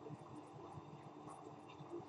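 Faint room tone: a steady low hiss with a faint constant hum, no distinct sounds.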